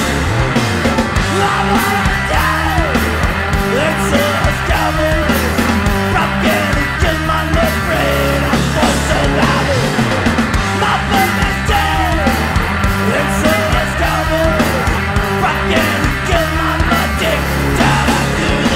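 Hardcore punk song played by a full band: distorted electric guitar, bass and drums, loud and continuous, with yelled vocals.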